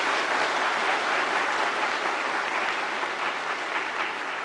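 Audience applauding in a large hall, a steady dense clapping that eases off slightly toward the end.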